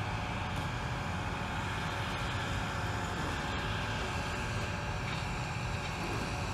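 Railway work train's engine running steadily, a constant hum that neither rises nor falls.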